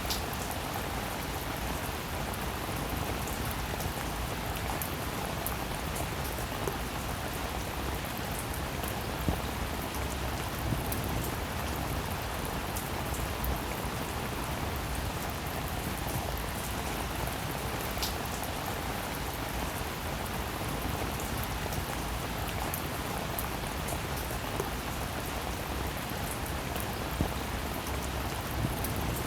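Steady rainfall, with now and then a louder single drop striking close by.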